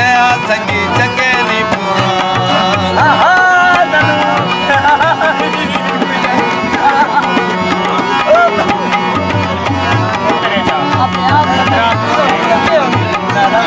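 Live harmonium and tabla: the harmonium holds chords while the tabla keeps up a rhythm of low drum strokes. A voice sings over them, its pitch bending and wavering.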